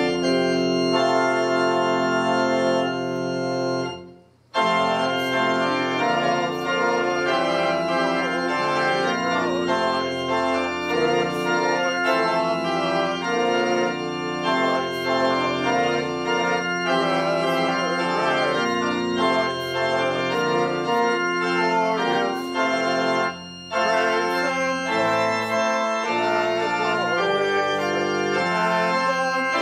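Church organ playing a hymn, sustained chords with a few voices singing along. It stops briefly between verses about four seconds in and again about twenty-three seconds in.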